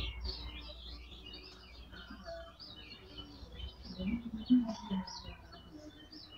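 Small birds chirping in the background, many short high calls one after another, with a faint low rumble fading out over the first few seconds.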